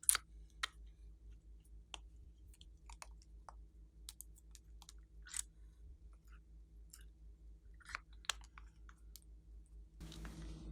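Glossy slime being kneaded and pressed by hand, making irregular sticky clicks and small pops over a steady low hum, with a short rustling squish near the end.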